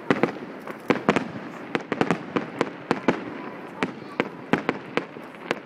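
Aerial fireworks shells bursting in a rapid, uneven string of sharp bangs, about three or four a second, over a continuous crackling haze.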